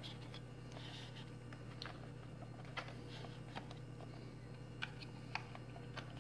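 Light clicks and taps of a hand handling the plastic shell and gimbal of a DJI Phantom quadcopter, a few scattered through the last half, over a faint steady low hum.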